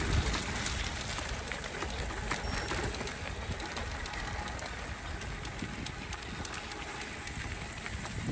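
Cervélo Aspero-5 gravel bike's tyres rolling over an unpaved gravel trail: a steady rumble with many small crackles.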